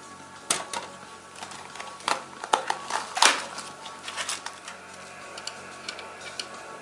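Irregular clicks and knocks of computer parts being handled during assembly, clustered in the first half with the loudest knock a little before halfway, then only light, scattered ticks.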